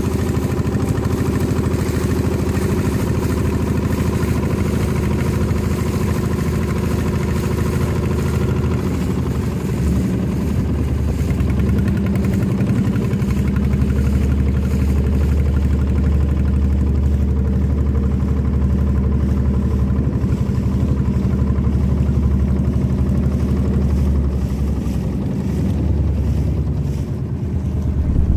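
Motorboat engine running steadily while underway, heard from on board; its note shifts slightly about ten seconds in.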